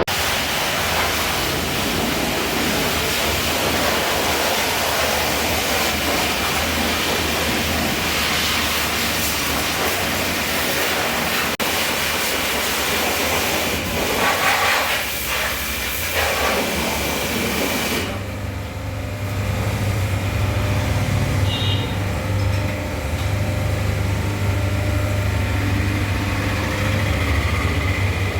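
A motor vehicle on the move, with wind rushing over the microphone and the engine running underneath. About 18 seconds in the wind rush falls away and a steady low engine hum dominates, as if the vehicle is slowing down.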